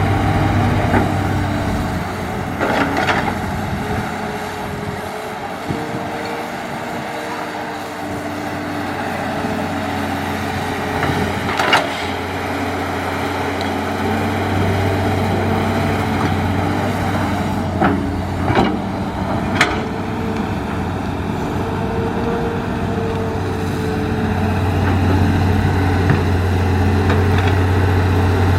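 Hitachi hydraulic excavator's diesel engine running steadily under work. Its low drone drops back for a stretch and builds again near the end. A few sharp knocks sound over it.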